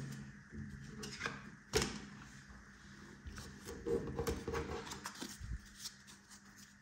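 Faint handling of trading cards: light taps and rustles as cards are shuffled through, with one sharper click a little under two seconds in.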